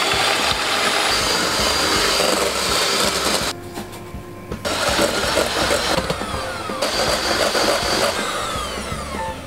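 Electric hand mixer whipping egg whites into meringue in a stainless steel bowl, its motor whirring steadily. It stops for about a second after three and a half seconds, while sugar goes in, then runs again.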